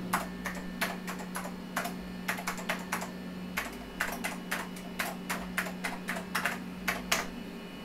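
Typing on the NeXT Cube's keyboard: irregular keystrokes entering a web address into the browser, stopping about seven seconds in, over a steady low hum.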